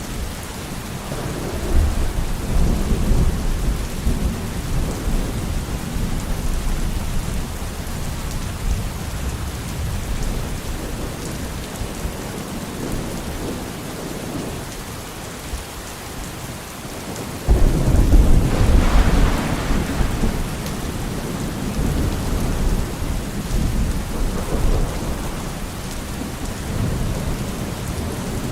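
Steady heavy rain with rolling thunder: a rumble swells about two seconds in, and a louder thunderclap breaks suddenly past the middle and rolls on for several seconds.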